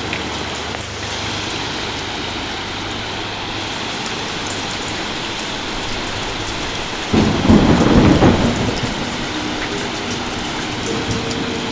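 Steady heavy rain over rushing river water. About seven seconds in comes a sudden thunderclap that rumbles for roughly two seconds.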